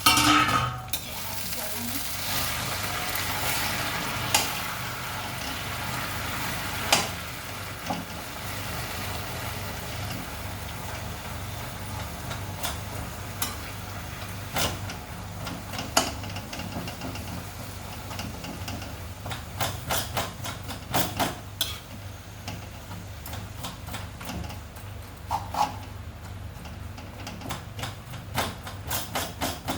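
Oil sizzling in a cooking pan while a spoon stirs and knocks against the pan. The sizzle is loudest in the first few seconds and then settles, and the spoon's clinks come thicker in the second half.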